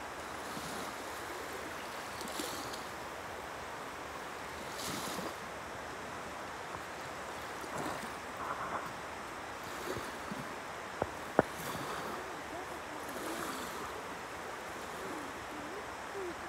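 Small waves washing steadily onto a sandy shore of a calm sea, with light wind on the microphone. Two sharp clicks sound close together about eleven seconds in.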